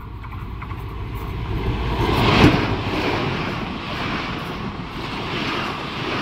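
Diesel-electric locomotive of an express passenger train passing close at speed: the sound builds to a peak about two and a half seconds in as it goes by. After that comes the steady noise of the passenger coaches rolling past on the rails.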